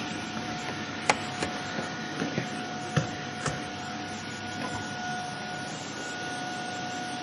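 Vacuum cleaner running steadily on a wooden floor, its motor holding a steady whine over a rushing of air. A few sharp clicks and knocks sound over it, one just after a second in and two more around three seconds in.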